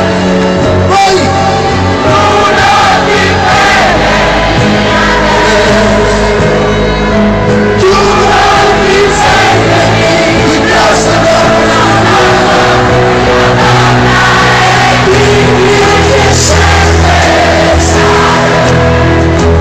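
Loud live rock band with piano, electric guitar and drums playing, with singing and a stadium crowd singing and cheering along, recorded from within the audience.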